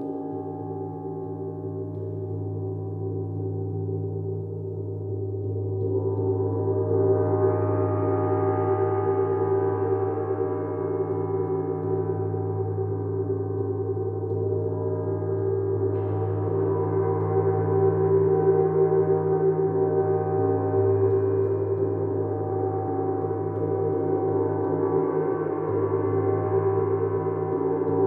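Gong played for a sound bath, ringing in a long continuous wash of many overlapping tones. It builds louder about six seconds in and swells again with brighter upper tones about halfway through.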